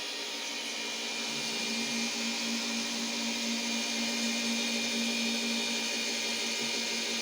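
Metal lathe converted to CNC running, a steady mechanical whir with a held tone that comes in about two seconds in and fades out shortly before the end.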